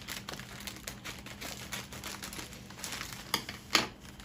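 Parcel packaging being torn open and crinkled by hand, with a run of small crackles and two louder sharp rips near the end.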